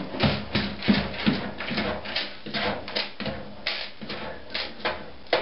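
A cat digging and scratching in litter inside a covered litter box: a fast, uneven run of scratchy scraping strokes, about three a second.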